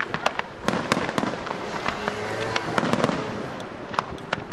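Aerial firework shells (bombe da tiro) launching and bursting: many sharp bangs in quick, irregular succession.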